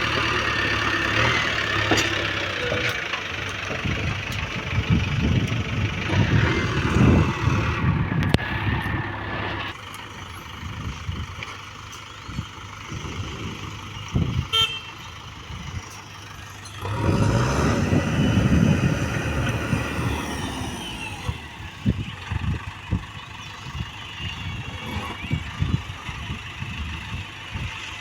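Diesel engines of a backhoe loader and tractors running at a work site. The engines are loud for the first ten seconds, drop back, then surge louder again for a few seconds midway.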